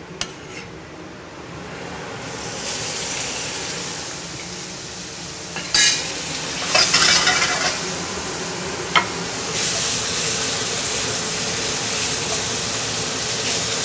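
Thin-sliced beef sizzling as it stir-fries in a very hot wok, the sizzle building after the first couple of seconds. A spatula knocks and scrapes against the wok a few times around the middle.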